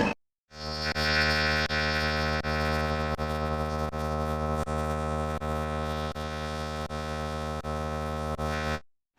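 Steady, buzzy electronic tone with many overtones, dipping briefly about every three-quarters of a second. It starts after a short silent gap and cuts off suddenly just before the end.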